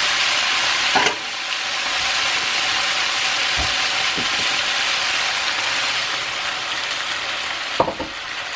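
Squid and cucumber sizzling in a hot frying pan, a steady hiss, stirred with chopsticks. A couple of sharp clicks come about a second in and again near the end.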